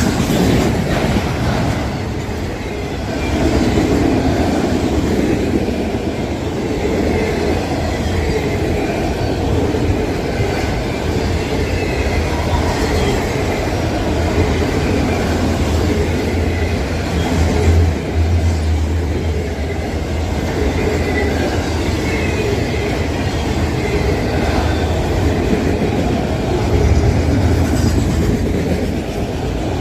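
Freight train rolling past, its wheels running steadily on the rails.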